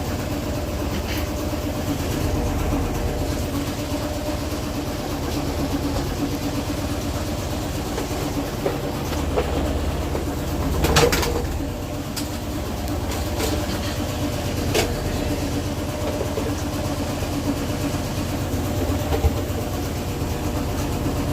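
Maytag MVW6230HW3 washing machine in its spin cycle: a steady motor hum over a low rumble from the spinning drum, with a few brief clicks, the loudest about eleven seconds in.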